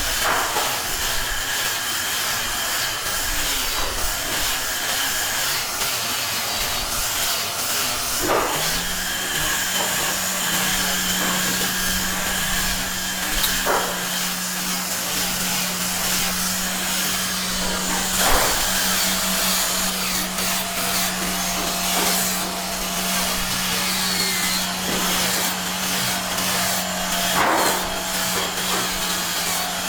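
Workshop electric motor running steadily, a constant hum under a hiss, with a few brief knocks.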